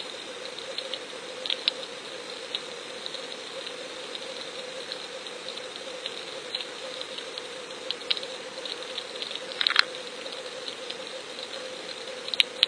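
Underwater sound picked up by a submerged fishing camera: a steady hiss with a steady hum, and scattered sharp clicks and crackles. The clicks come in a brief flurry a little before ten seconds in, and two louder clicks come near the end.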